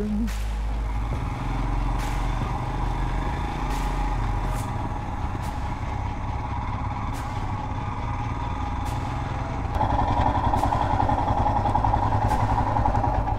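Royal Enfield Himalayan's 411 cc single-cylinder engine running steadily while the motorcycle rides along a dirt track, growing louder about ten seconds in.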